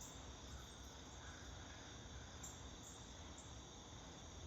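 Faint, steady chorus of crickets, an even high chirring that does not change, over a low background hum.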